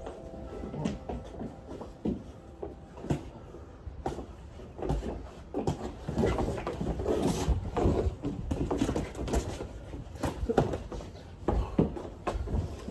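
Irregular soft thuds and scuffs of two people sparring: gloved punches landing and feet shuffling, with no steady rhythm.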